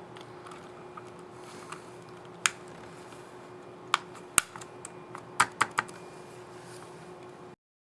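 Keys of an HP EliteBook 840 G8 laptop keyboard being pressed, giving irregular sharp plastic clicks, about half a dozen loud ones with fainter taps between, over a faint steady hum. These are the typical clicks of a key snapping on its scissor mechanism, as when a reinstalled keycap is tested.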